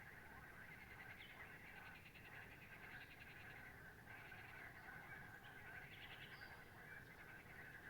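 Faint, steady chorus of animal calls, with a dense trilling layer and a few higher trills standing out now and then.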